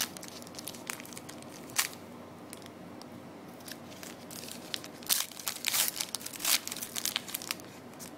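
Foil wrapper of a trading-card pack crinkling and tearing as it is opened, with sharp crackles about one and two seconds in and a thicker run of them between five and seven seconds.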